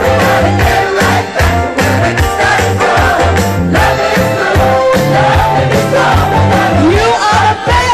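Live band playing an upbeat soul-pop song with a steady beat and bass line, with singing over it.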